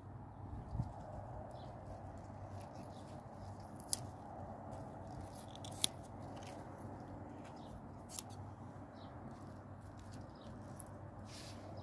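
Snap pea pods being picked off the vines: four sharp snaps spaced a couple of seconds apart, with a few fainter ones, over a steady low background.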